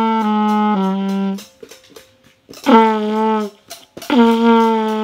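Beginner trumpet playing slow, sustained notes: a held note stepping down twice to end a three-note phrase about a second and a half in, a short note that wavers in pitch at its start, then another held note beginning near the end.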